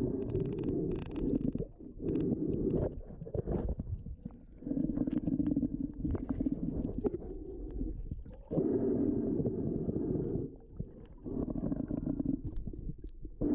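Muffled underwater noise picked up by an action camera in its waterproof housing, swelling and fading every few seconds, with scattered small clicks and taps.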